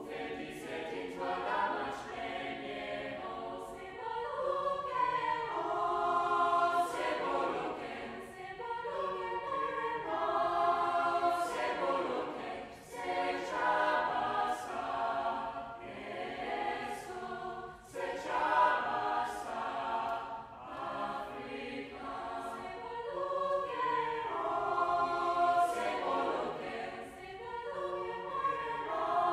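Mixed choir of men's and women's voices singing a South African choral song in harmony, phrase after phrase.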